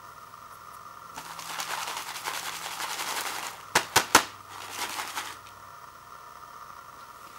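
Dry rice noodles and dried vegetable flakes rattling and crackling in a paper bowl as it is shaken, with three sharp knocks in quick succession about halfway through, then a shorter rattle.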